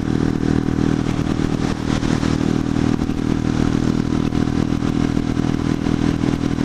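Buell Blast's single-cylinder engine running steadily at highway cruising speed, holding one pitch, with wind and road noise over it.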